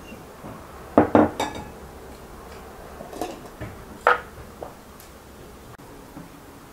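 China plate and porcelain teapot clinking as pieces of fruit are tipped into the pot and the plate is set down. There is a quick cluster of sharp clinks about a second in, lighter ones around three seconds, and one more solid clink just after four seconds.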